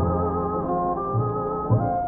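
Vintage instrumental oldies music, muffled as if playing from another room, with a held, wavering melody note over a bass line. Faint fireplace crackles tick above it.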